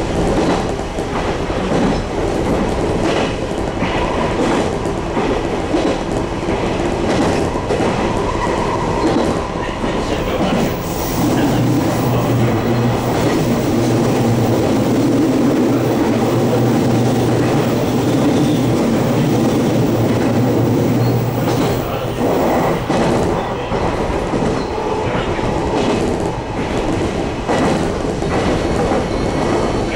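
Running noise inside a JR Kyushu 813 series electric train under way: wheels rumbling and clacking over the rails. A louder steady low drone sets in about eleven seconds in and eases off about ten seconds later.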